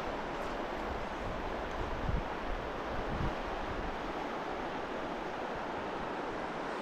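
Steady rushing of a mountain stream's current, with a few low wind rumbles on the microphone in the first half.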